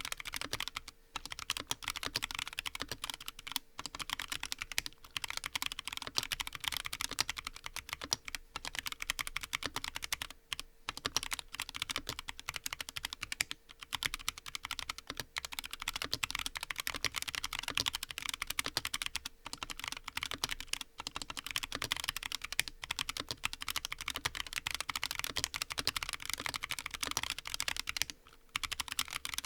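Fast continuous typing on a Frusta Fundamental custom mechanical keyboard with a brass plate and lubed Huano White Blue switches: a dense stream of key clacks, broken by brief pauses every few seconds.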